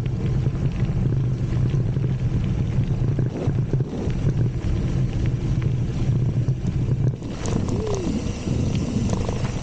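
Wind buffeting the bike-mounted camera's microphone as a mountain bike rolls down a dirt track, a steady low rumble. About seven seconds in the rumble eases and a lighter crackle of tyres on loose dirt comes through.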